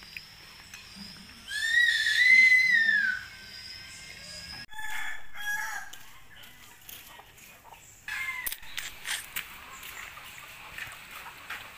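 A rooster crows once about a second and a half in, one rising-then-falling call lasting under two seconds, the loudest sound here. A few shorter, fainter calls follow, then scattered clicks and light knocks.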